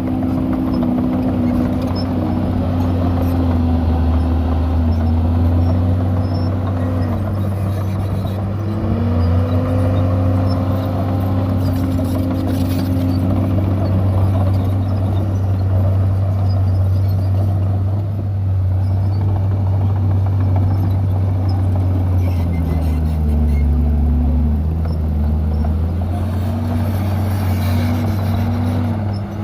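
Heavy diesel engine of a Komatsu D51PX bulldozer running steadily, its pitch shifting up and down several times as it works under load.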